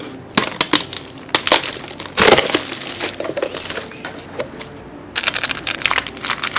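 Plastic food packaging crinkling and crackling as it is handled, in a run of sharp crackles, with a louder crunch about two seconds in and dense crinkling near the end.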